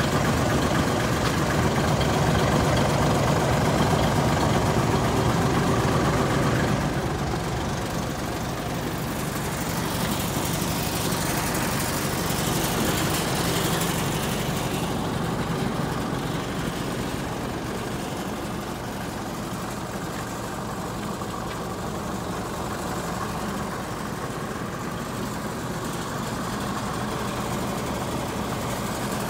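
The diesel engine of a Mitsubishi Fuso Super Great heavy truck idling steadily. About seven seconds in it becomes quieter.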